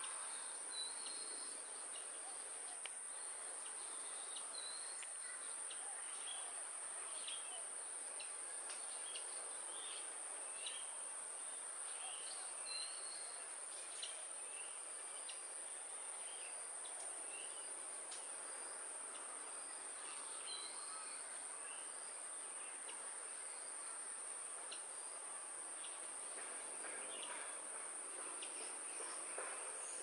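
Steady high-pitched drone of insects, with scattered short bird chirps and a few faint clicks over it.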